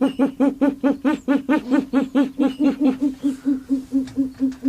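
An owl hooting in a fast, even run of about six hoots a second, strong at first and then weakening until it dies away near the end. It is spring hooting, a sign of the breeding season.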